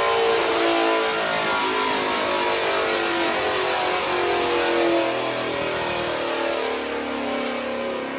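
Ford Mustang's Gen 1 Coyote 5.0 L V8, on E85 with full bolt-ons, running hard at high revs on a chassis dyno during a power pull. About five seconds in, the level eases and the pitch falls as the revs come down.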